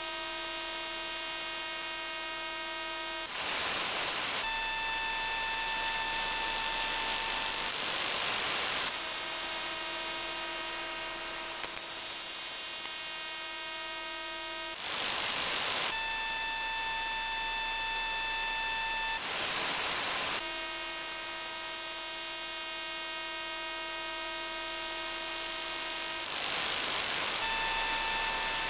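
Shortwave receiver audio in upper sideband of a pulsed signal on 28.60 MHz, which the uploader takes for an over-the-horizon radar or ionosonde. It is a harsh buzz in static whose pitch and overtones change every few seconds, broken by short rushes of plain hiss, with a faint falling sweep in the middle.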